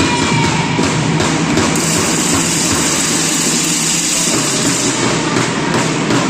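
Basketball spectators making a steady loud crowd noise, which grows brighter and hissier about two seconds in.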